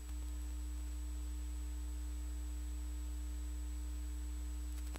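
Steady electrical mains hum with a faint hiss and a thin high whine. There is a faint click just before the end.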